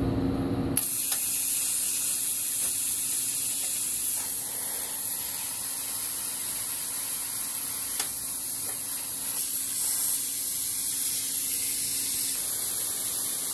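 Compressed air hissing steadily out of an S45 blowback plasma torch on a Marquette M12150 plasma cutter. The hiss starts abruptly about a second in, with no arc striking. The owner puts this down to the air coming on first and blowing back the electrode, so the relay that switches on the transformer never kicks in.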